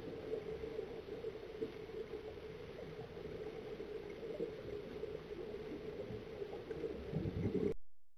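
Muffled underwater noise with the bubbling of a scuba diver's exhaled air from his regulator, swelling briefly just before it cuts off suddenly near the end.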